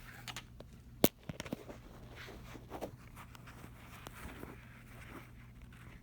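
Faint rustling and handling noises, with one sharp knock about a second in and a few lighter clicks just after, over a low steady hum.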